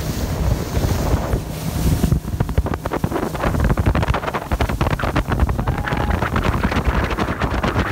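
Wind buffeting the microphone hard, over the rush and splash of choppy water around a small inflatable boat under way.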